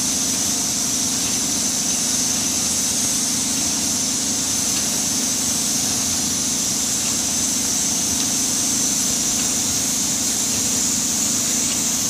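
Steady din of palm oil mill machinery: the press-cake conveyor and other running plant, a constant low drone with a high hiss over it.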